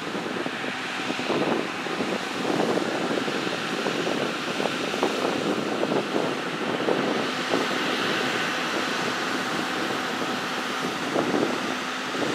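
John Deere 9360R four-wheel-drive tractor's diesel engine running steadily as it pulls a grain cart, mixed with wind buffeting the microphone in uneven gusts.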